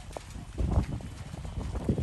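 Irregular low thumps and rumble on a handheld phone's microphone, from the footsteps and handling of someone walking while filming. The loudest thumps come a little under a second in and again near the end.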